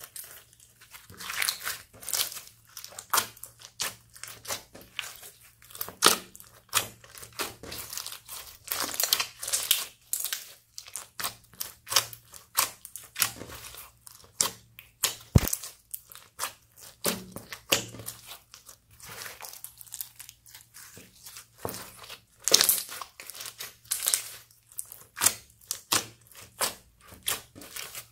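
Hands squeezing and folding clear slime packed with foam beads, making irregular crackles and pops several times a second, with one sharper snap about halfway through.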